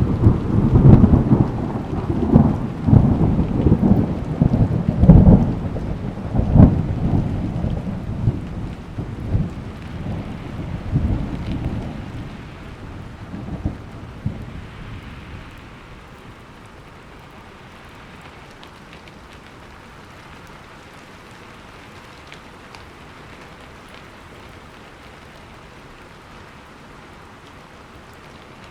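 A thunderclap rolling and rumbling with repeated cracks, loudest in the first six seconds and fading away by about fifteen seconds in. Steady heavy rain continues underneath and alone after the thunder dies out.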